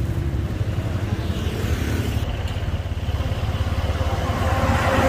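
Motor scooter engine running with street traffic, a steady low rumble. A vehicle passing gets louder near the end.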